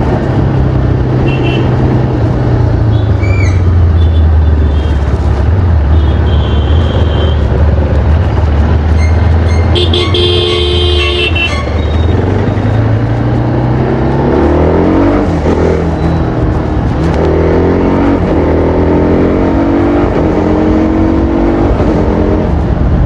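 TVS Apache RR310's single-cylinder engine, stock exhaust, running at low steady revs in city traffic, then revs climbing and falling several times over the last third. A vehicle horn sounds briefly about halfway through.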